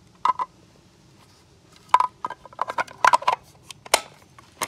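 Short, sharp plastic clicks and clacks in small clusters from handling a Dewalt 20V battery adapter and its wiring connectors.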